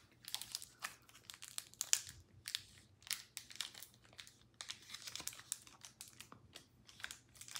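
Pokémon card pack wrapper crinkling as fingers pinch and work at it, trying to get it open: a faint, irregular scatter of small crackles and rustles.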